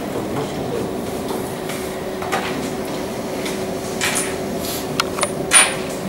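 Handling noise from a handheld microphone being passed along the table and set into its small tripod stand: a few knocks and rubs, the loudest near the end, over a steady room hum.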